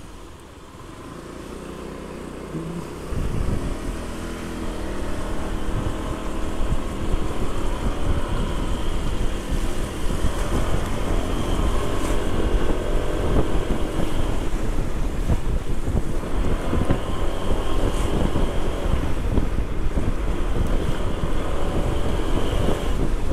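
Honda PCX scooter's single-cylinder engine running as it picks up speed on a wet street, under heavy wind buffeting on the microphone that grows much louder about three seconds in and then stays steady.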